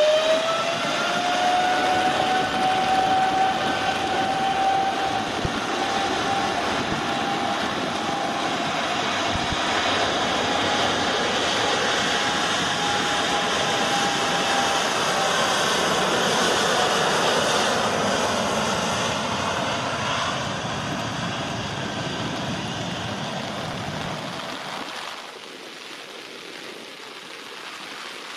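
Boeing 787-8 jet engines at takeoff power: a whine rises in pitch over the first second and then holds steady over a loud, dense roar as the airliner rolls down the wet runway. The roar fades after about twenty seconds and drops away near the end, leaving the hiss of heavy rain.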